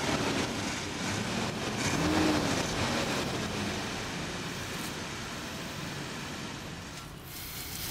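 Toyota Land Cruiser's 5.7-litre V8 heard at the exhaust, revved once about two seconds in, rising and falling in pitch, then settling back to a steady idle.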